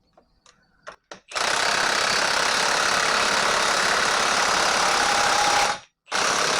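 Impact wrench hammering as it runs down the screw of a ball-joint press, pressing a new wheel stud into a 1959 Chevrolet Bel Air rear axle flange. A few light clicks, then one long run of about four and a half seconds, a brief stop, and it starts again near the end.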